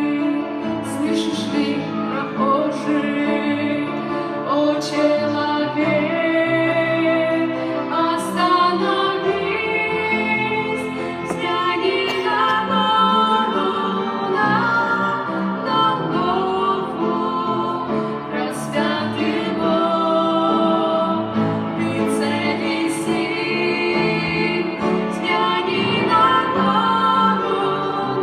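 Two female voices singing a song over musical accompaniment.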